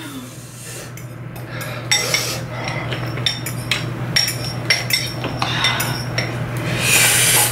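A metal utensil clinking and scraping against a ceramic bowl as noodles are eaten, many small irregular clinks over a steady low hum. A short hissing noise comes near the end.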